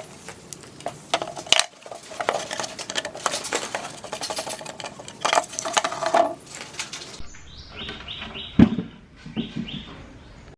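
A run of small clinks, taps and scrapes from hand work on hard objects, some ringing briefly. The sound changes abruptly about seven seconds in to a few duller knocks.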